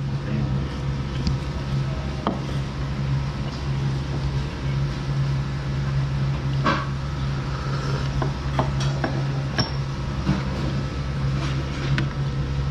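A steady low hum with light clinks of tableware, bowls and chopsticks, scattered through it, about ten in all and most of them in the second half.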